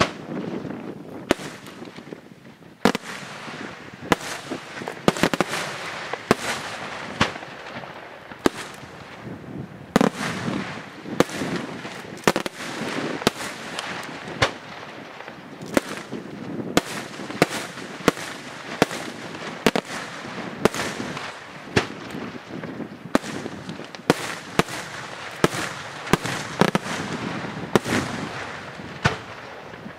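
Aerial firework shells from a Senatore Fireworks display bursting in quick succession: sharp reports about once or twice a second over a continuous crackle and rumble.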